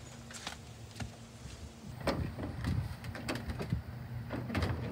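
Metal latch on a corrugated-metal shed door being worked by hand: a few separate clicks, then from about two seconds in a run of rattling knocks as the latch and door are handled.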